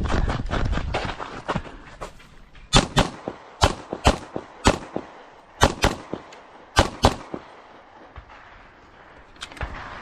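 Pistol shots fired during a timed course of fire: about nine sharp cracks, several in quick pairs about a quarter second apart, with two fainter ones near the end. The first second and a half is a low rumble of wind and movement on the microphone as the shooter moves.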